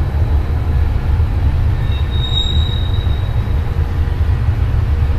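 Freight train of covered hopper cars rolling past with a steady low rumble, and a faint high wheel squeal for about half a second, two seconds in.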